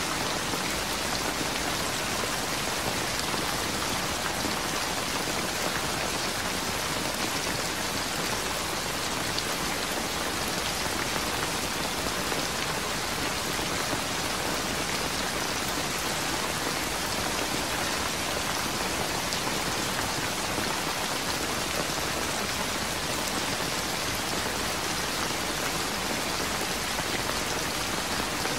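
Rain falling steadily and heavily: an even, unbroken hiss with faint scattered ticks of individual drops.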